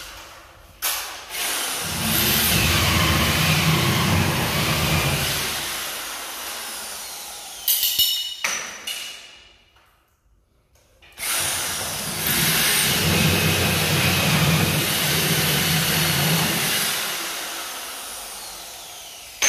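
Electric drill with a hole saw cutting round light holes into a gypsum board false ceiling, in two runs of several seconds each that each fade gradually as the cut goes through. A short clatter comes around eight seconds in, between the two runs.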